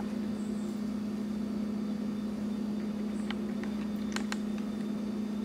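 A steady low electrical hum, with a few faint light taps about three and four seconds in as batter is scraped from a plastic bowl into a baking pan with a spatula.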